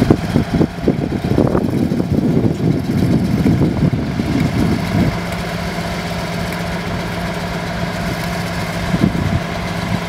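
Diesel locomotive engine idling, with uneven low rumbling for the first half that settles into a steady hum about halfway through.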